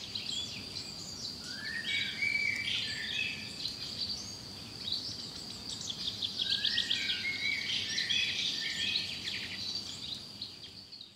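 Several birds singing in short whistled phrases and fast trills over a steady high tone; the soundscape fades out near the end.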